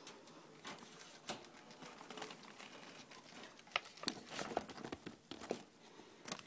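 Pet rat rustling and scrabbling through cloth and paper nesting material in its cage: irregular crinkling with scattered small sharp clicks, a few louder ticks about a second in and around four seconds in.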